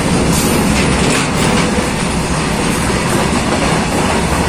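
Freight train wagons rushing past close by: a loud, steady rumble and rattle of wheels on rail, with a few sharper clacks over rail joints in the first second or so.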